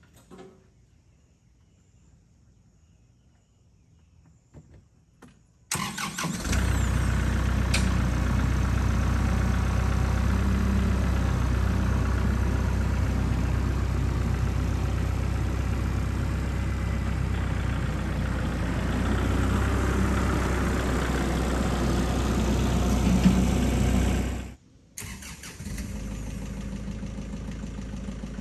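Compact tractor's diesel engine starting abruptly about six seconds in after near silence, then running steadily. Near the end it cuts out sharply and comes back quieter as the tractor moves away.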